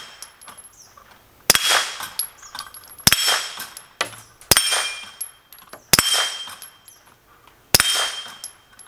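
Five suppressed pistol shots through a SilencerCo Omega 36M, spaced about a second and a half apart. Each shot is followed a moment later by a short metallic ring from a steel target being hit.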